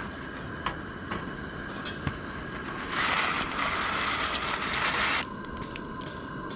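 Two-burner propane camp stove running, its burners giving a steady hiss, with a few light clinks of cookware. About three seconds in, a louder hissing rush lasts about two seconds while pasta shells are poured into the pot on the stove.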